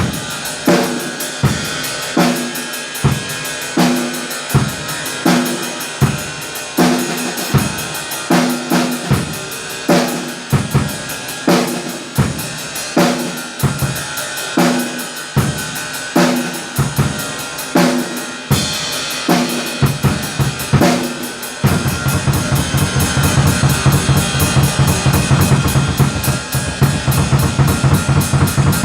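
Drum kit played solo: a steady groove of bass drum and snare strokes under constant cymbal. About three-quarters of the way through it switches to a louder, denser pattern of fast low drum strokes.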